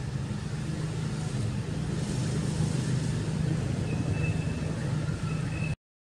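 Steady low rumble of outdoor background noise with a few faint, short high tones over it; it cuts off suddenly near the end.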